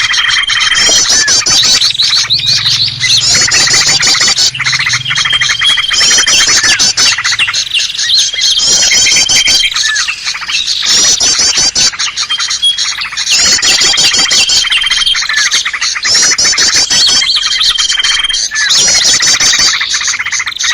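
Mixed bird-lure recording of small songbirds calling together: a dense chatter of rapid high chirps and trills with a short steady whistle, the pattern repeating about every three seconds as a loop.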